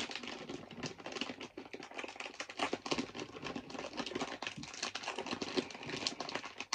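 A plastic crisp packet crinkling and crackling in rapid, irregular bursts as hands pull and twist at it, still trying to tear it open.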